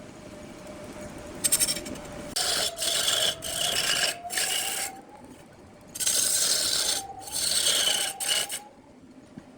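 Wood lathe running with a steady hum while a tool is pressed against the spinning wood, a harsh scraping rasp in about seven short passes with a pause about five seconds in.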